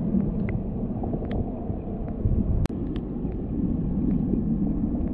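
Muffled underwater sound inside a sea urchin hatchery tank: a steady low rumble of water with scattered faint clicks. There is one sharp click and a brief dropout a little past halfway through.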